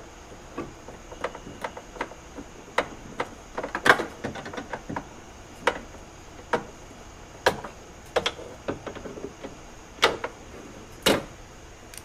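Irregular sharp clicks and metallic knocks of hands working inside a Nissan Z31 door shell, fitting nuts onto the studs behind the door's mounting plate. There are about twenty clicks at uneven intervals, with the loudest knocks about four seconds in and twice near the end.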